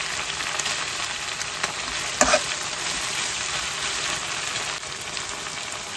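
Grasshoppers and chilies frying in a steel wok, sizzling steadily while a metal spatula stirs them. One sharp knock about two seconds in stands out above the sizzle.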